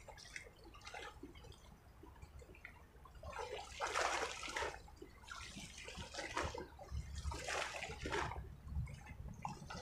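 Faint steady rush of a flooded river, broken about halfway through by three close swishing, rustling noises of about a second each from movement in wet grass near the microphone.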